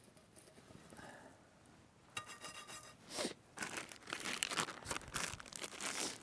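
Plastic bag crinkling and rustling as it is handled, from about three seconds in, after a short squeak about two seconds in.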